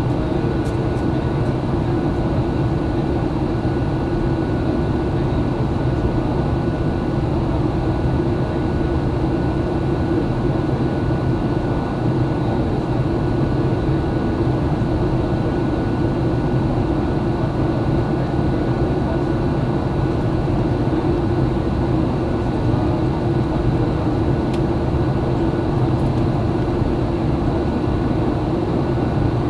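Steady cabin noise inside a Boeing 737-800 on its approach to land: an even drone of engines and rushing air, with a faint high steady whine over it.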